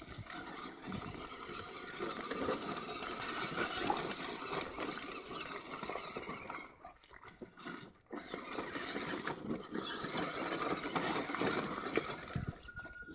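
Electric 1/10-scale RC trucks crawling over creek rocks: motors and gears whining and grinding, tyres scrabbling on stones. The noise drops off briefly about seven seconds in, then picks up again.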